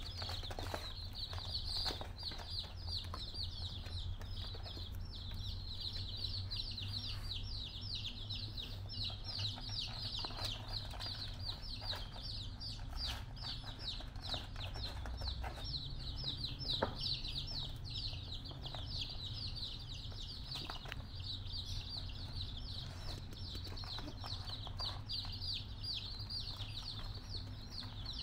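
A brood of baby chicks peeping nonstop, many short high falling chirps overlapping one another. Now and then come soft taps from the cardboard egg tray as kittens nose at it.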